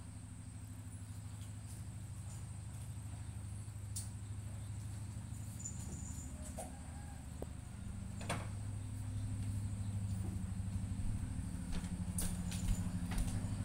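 Domestic cat purring steadily and close up while nursing her kittens, a low rapid pulsing that grows a little louder about two-thirds of the way in. A few faint clicks sound over it.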